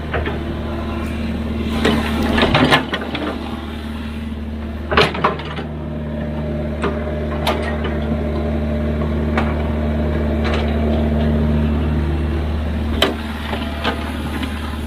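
Excavator's diesel engine running steadily, with several sharp metallic clanks and knocks from the machine working, the loudest about two and a half seconds and five seconds in.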